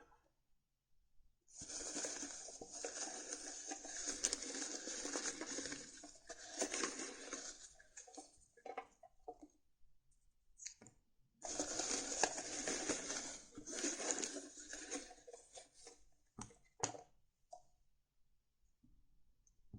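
Tarot cards and paper being handled: two long stretches of dense rustling and shuffling, with scattered light taps and clicks between and after.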